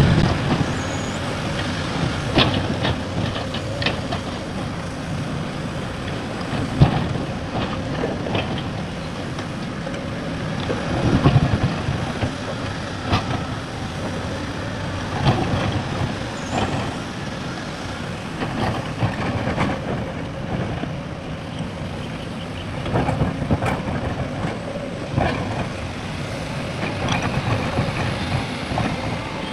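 Heavy diesel machinery running steadily, an excavator working with a dump truck, with frequent irregular sharp knocks and clanks.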